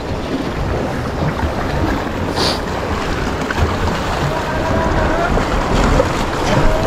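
Wind buffeting the microphone over the wash of sea waves against a rocky shore, a steady low rumbling rush.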